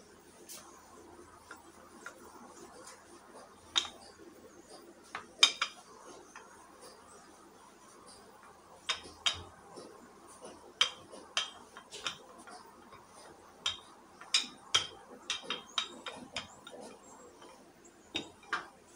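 Wooden rolling pin working a stuffed potato paratha on a stone countertop: scattered sharp clicks and knocks as the pin rolls and strikes the stone, with one loudest knock about five seconds in.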